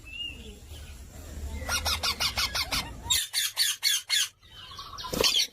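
A parrot calling: a brief whistle, then rapid runs of short repeated squawks, about six a second, and one louder call near the end.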